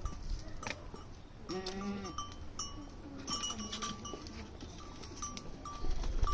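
Bells on grazing livestock clinking and ringing irregularly, with a single short bleat about a second and a half in.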